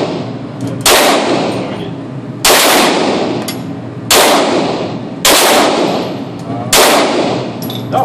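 Glock 17 pistol fired slowly: five single shots about a second and a half apart, each ringing with a long echo off the walls of an indoor range.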